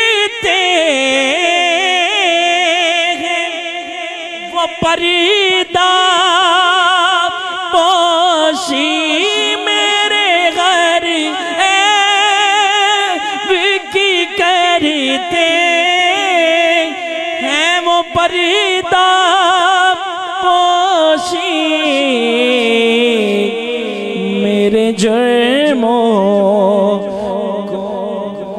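A man singing a naat, a devotional Urdu poem, into a microphone, drawing out long wavering melismatic phrases with strong vibrato. About two-thirds of the way through, his voice drops to a lower register.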